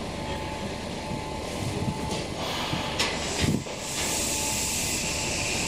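Electric subway train running with a steady rumble, with two sharp knocks about three seconds in and a rising hiss in the last second and a half.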